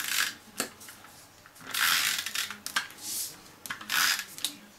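Tape runner drawn in short strokes along the edges of a piece of cardstock, laying down adhesive: several scratchy swipes, the longest about half a second, the two loudest about two and four seconds in.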